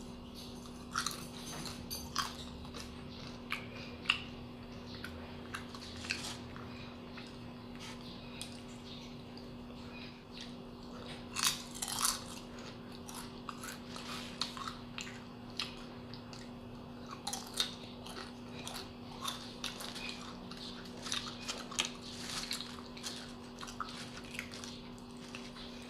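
Close-up crunching and chewing of crisp fried banana chips, paprika-flavoured: irregular sharp crunches, with the loudest bites about halfway through. A faint steady hum sits underneath.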